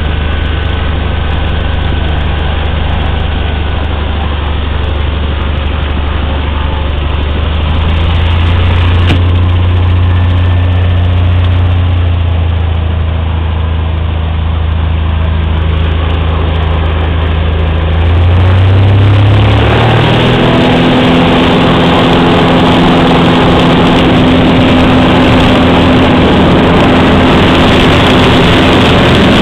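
Cessna 182's piston engine and propeller heard from inside the cabin, running steadily at low power while taxiing, then revving up sharply about 18 seconds in and staying loud at high power, as for the takeoff roll.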